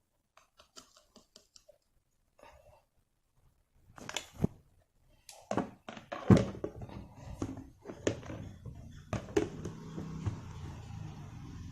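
A plastic spoon scooping salt and tipping it into a bowl: faint scattered ticks, then from about four seconds in a run of louder clicks and knocks of the spoon against the salt container and bowl.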